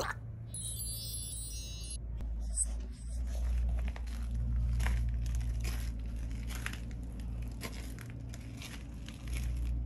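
Low rumble of wind and handling on the microphone, with scuffing and clicking footsteps on a concrete path as the person walks behind a leashed cat. A short twinkling chime-like sound effect about half a second in.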